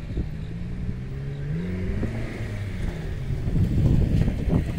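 A vehicle's engine or motor drone rising in pitch from about one to two and a half seconds in, over a low, gusty rumble of wind on the microphone.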